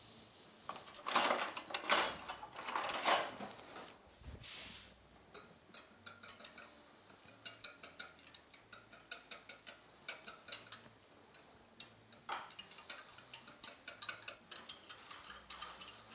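A small whisk ticking and scraping against the sides of a measuring jug in quick, light strokes, stirring cornstarch into orange juice to dissolve it. A few louder rustles and knocks of handling come in the first few seconds.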